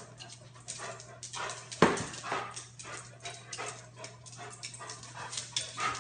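A dog making short whimpering and yipping sounds, with one louder, sharper sound about two seconds in, over a steady low hum.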